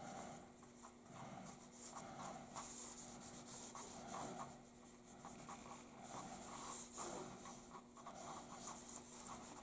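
Faint, irregular strokes of a paintbrush rubbing over wet alcohol ink on a plastic painting sheet, over a low steady hum.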